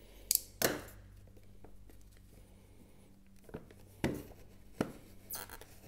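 Clear plastic display case of a model freight car being handled and worked open, giving a few sharp plastic clicks and knocks: two close together near the start and three or four more in the second half.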